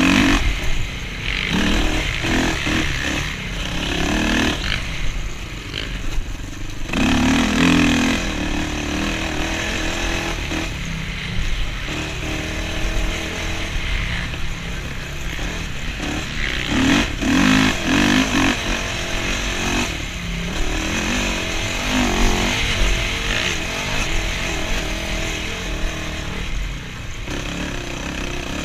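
Honda TRX450R sport quad's single-cylinder four-stroke engine revving hard and backing off again and again as it is ridden around a motocross track, heard from the rider's helmet camera.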